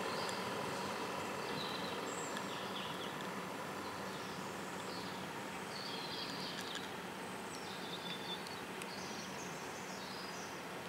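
Small birds chirping in short scattered calls over a steady low background hum that fades slowly.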